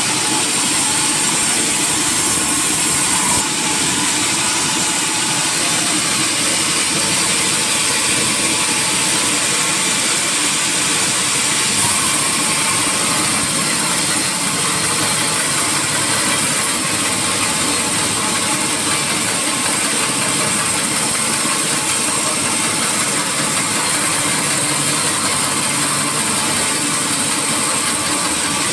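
Sawmill machinery running steadily, a loud, even mechanical noise with a strong high hiss and no breaks.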